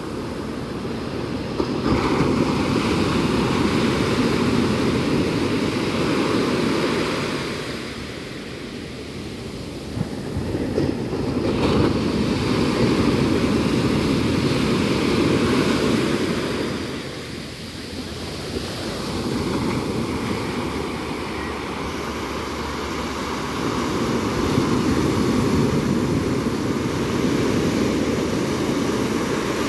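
Ocean surf breaking on a sandy beach: waves crash and wash up the shore in surges that swell and fade about every ten seconds.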